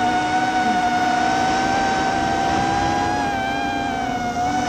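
FPV freestyle quadcopter's electric motors and propellers whining steadily in flight, the pitch wavering slightly with the throttle.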